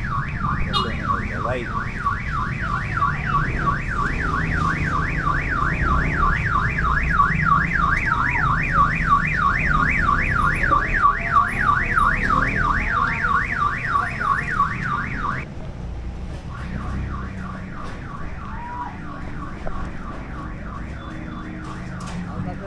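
Electronic car alarm siren warbling rapidly up and down, about three sweeps a second, over a low rumble of street traffic. It cuts off about fifteen seconds in, and a fainter warble of the same kind carries on after.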